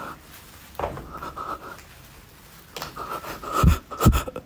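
A person breathing hard close to the phone microphone: quiet at first, then a run of quick, heavy breaths about twice a second toward the end.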